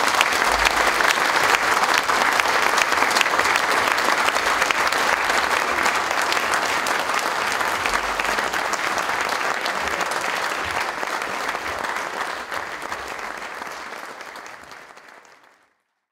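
A roomful of people applauding steadily, the clapping fading away over the last few seconds.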